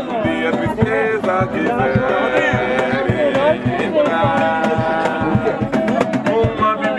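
Acoustic guitars strummed with a cajón beating time underneath, and voices singing along in a live, informal jam.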